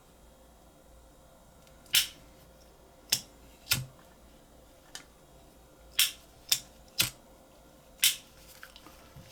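About seven sharp, irregularly spaced clicks from a butane lighter and its metal cap being handled.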